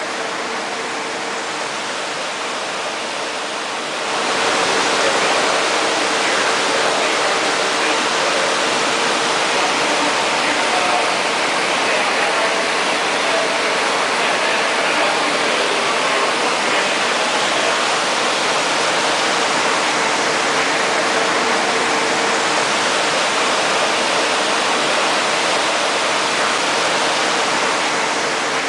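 Storm water pouring steadily out of an electrical box fed by an unsealed conduit and splashing onto a flooded floor, getting louder about four seconds in. A steady hum runs underneath.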